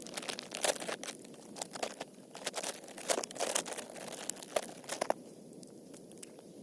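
Irregular crinkling and crunching for about five seconds, then it stops.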